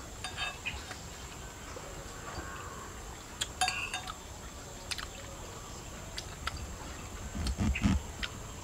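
Spoons clinking now and then against ceramic plates and bowls during a meal, in scattered light taps with a small run of ringing clinks about three and a half seconds in. A brief low muffled thud follows near the end.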